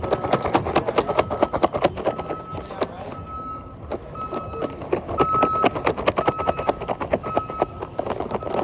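Repeated electronic beeping, a high tone about once every half second to a second, over a dense clatter of sharp clicks.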